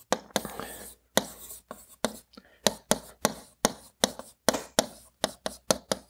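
Stylus tapping and scratching on the glass of a touchscreen whiteboard as words are handwritten: sharp, irregular clicks, about three a second.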